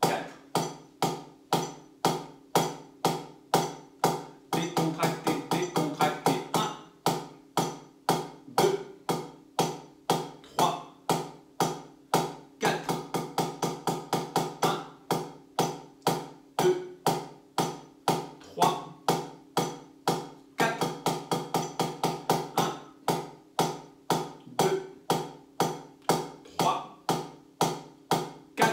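Drumsticks playing a stick-control progression exercise at 60 beats per minute: a steady stream of alternating strokes with regular louder accents.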